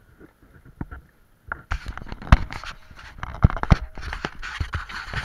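Hard plastic wheels of a toy ride-on four-wheeler rattling and scraping over a concrete driveway as it is towed. A few light clicks give way, about a second and a half in, to a continuous clatter full of sharp knocks.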